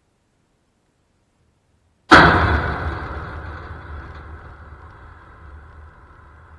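A baseball hits the backstop fence right by the camera: one sudden, very loud crash about two seconds in, then the fence rattles and rings, fading slowly over several seconds.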